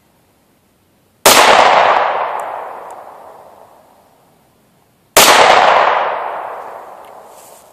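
Two 9mm pistol shots from a SKYY CPX-1, about four seconds apart, each followed by a long echoing decay.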